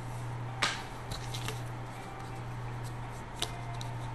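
A few short clicks and rustles from trading-card packs and cards being handled on a desk, three of them standing out over a steady low hum.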